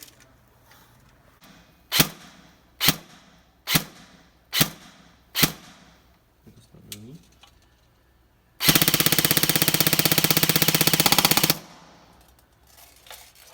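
E&C M4 R.I.S. Advanced airsoft electric rifle firing five single shots about a second apart, then one rapid full-auto burst of about three seconds.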